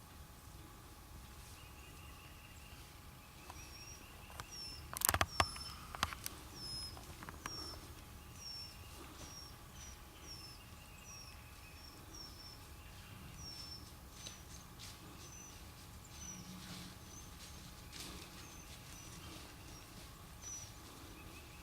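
A small bird calling a short, high, downward-dropping chirp over and over, about one to two times a second. About five seconds in, a brief burst of crackling and snapping: footsteps in dry leaves and brush.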